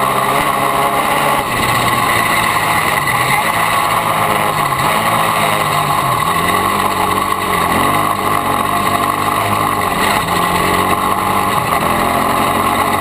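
Yamaha YFZ450 sport quad's single-cylinder four-stroke engine running under way, its revs rising and falling several times as the throttle is worked.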